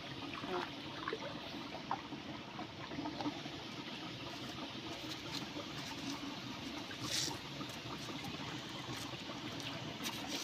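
Shallow water trickling through a rock channel, with a few small splashes and clicks as a hand gropes about in it.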